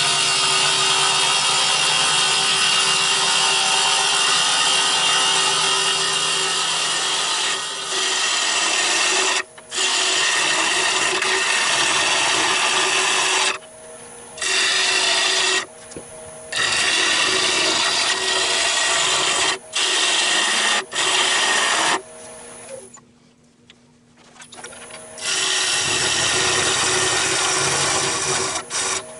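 A wood lathe spinning an olive-wood blank while a tool cuts into the wood, a steady scraping hiss over the lathe's steady hum. The cutting stops and starts several times, with a longer pause a few seconds before the end.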